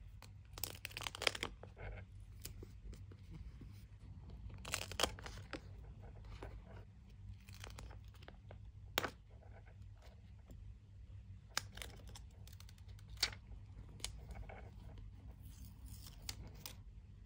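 Stickers being peeled off their backing sheets and handled with tweezers: short, scattered bursts of crinkling plastic sheet and peeling, with a few sharp clicks in between.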